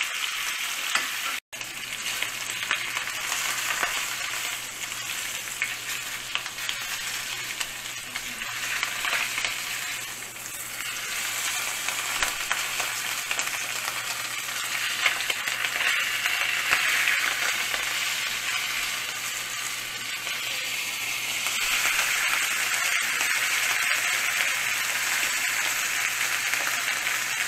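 Lamb shoulder sizzling and crackling in hot fat in a frying pan as it is seared to build a crust, a steady dense hiss with a quick break about a second and a half in.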